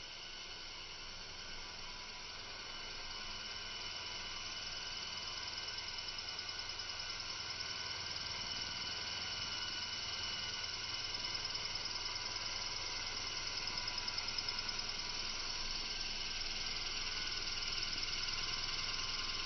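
Align T-Rex Sport 450 electric RC helicopter's motor and rotor whine, a steady high-pitched sound with several held tones, growing louder as it comes closer to hover over the lawn.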